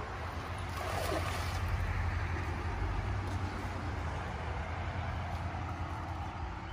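Shallow creek water running steadily over stones, with a low rumble of wind on the microphone.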